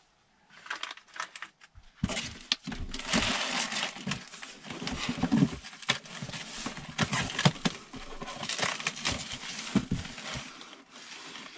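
Plastic packaging and a cardboard box rustling and crinkling as parts are dug out of the box by hand, with scattered knocks. It starts sparsely and becomes dense about two seconds in.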